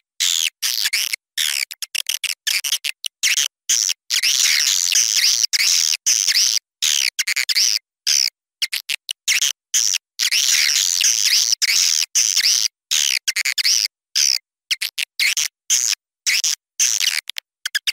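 A flock of swiftlets twittering in dense, overlapping high chirps. This is a looped lure recording of the kind played outside swiftlet houses to draw the birds in, and it cuts abruptly to silence many times.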